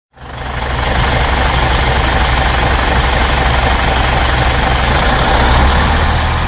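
A heavy vehicle's engine running steadily with a deep low hum, fading in over the first second.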